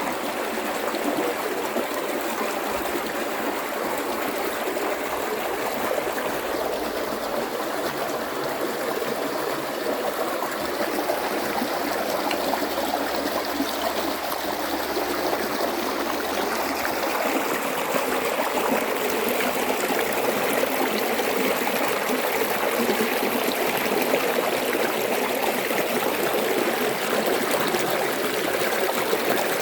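River water rushing and splashing over rocks in a steady, unbroken flow, growing a little louder about halfway through.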